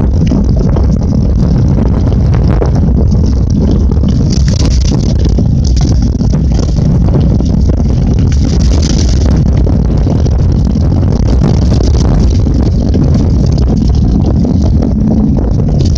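Mountain bike riding fast over a rough dirt trail, heard from a camera mounted on the bike: heavy wind rumble on the microphone with constant rattling and knocking as the bike jolts over bumps. Brief hissy patches come from the tyres on leaf litter.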